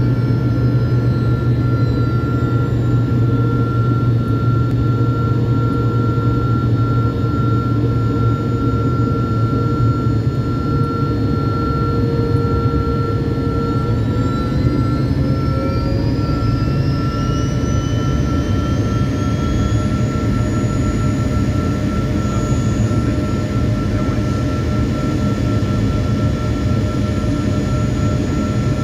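Cabin noise inside a Bombardier Learjet 75: its rear-mounted Honeywell TFE731 turbofans run with a steady rumble and a constant whine. About halfway through, the engine tones rise in pitch over several seconds and hold higher as the engines spool up on approach.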